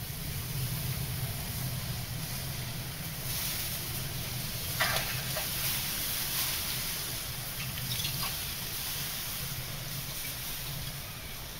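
Water poured from a watering can into a hot pot over a wood fire, hissing and sizzling as it boils off into clouds of steam, with a few short crackles.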